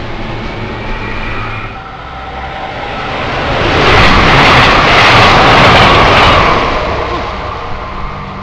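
SEPTA Silverliner V electric commuter train pulling away with a motor whine, then an express Silverliner V train rushing through the station at speed: a loud roar of wheels and air that swells about three seconds in, peaks midway and fades near the end.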